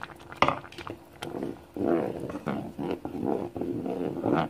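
Wooden spatula stirring thick tomato soup in a pot, a wet sloshing stir as fresh blended tomato purée is mixed in, with a sharp knock about half a second in.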